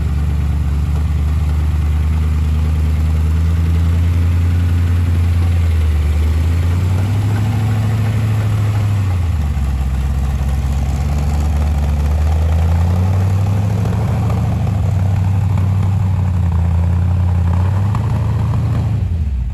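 Engine of a vintage Ford Bronco rock crawler running at low revs under load as it crawls up rock ledges. Its low note rises and falls a few times with the throttle.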